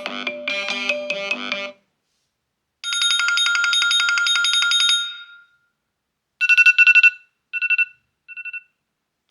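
iPhone ringtones playing one after another: a melodic tone ends about a second and a half in; after a short gap a rapid electronic trill rings for about two seconds, then three short trilling bursts follow, each shorter and fainter.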